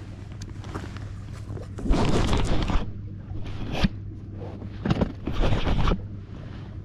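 Three bursts of rustling and scraping handling noise, the loudest about two seconds in, over a steady low hum.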